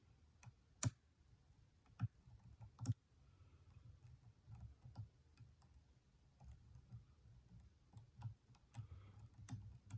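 Faint, irregular clicks and ticks of a lock pick and tension wrench working the pins of a six-pin Stanley padlock cylinder, with a few sharper clicks in the first three seconds. The core is sitting in a false set.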